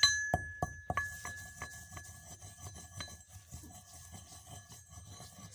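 A metal mortar and pestle (imam dasta) pounding and grinding dry roasted thorns into powder. It opens with a few ringing pestle strikes in the first second, then turns to quieter grinding and rubbing with light taps, and cuts off suddenly at the end.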